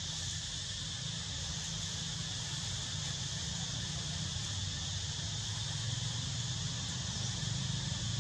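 Steady outdoor insect chorus, a constant high-pitched buzz, over a low steady rumble.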